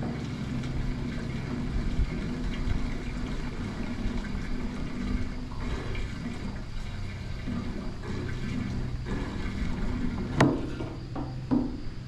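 Fuel pouring from a plastic fuel can into the fuel tank of a 1952 Case VAC tractor, a steady liquid sound. About ten seconds in there is a sharp knock, then two smaller clunks as the can's spout is lifted from the filler neck.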